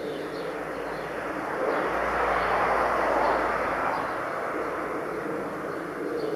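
Twin-engine jet airliner flying overhead on its approach to land. Its engines make a broad, rushing noise that swells to a peak two to three seconds in and then slowly fades.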